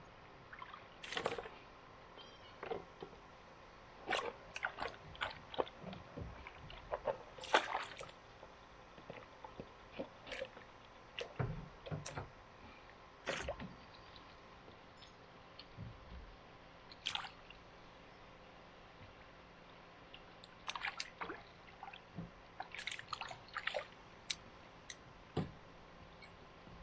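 Scattered small water splashes and drips with light knocks, coming irregularly every second or so.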